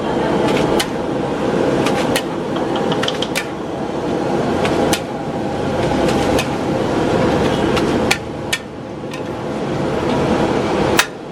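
Metal spatula striking and scraping a wok while mie balap seafood noodles are stir-fried, with irregular sharp clangs over a steady rushing noise.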